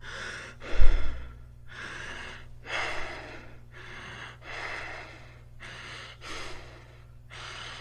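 Human breathing demonstrating Kussmaul respiration: deep, noisy breaths in and out, each about half a second, with short pauses between them. A single low thump comes about a second in.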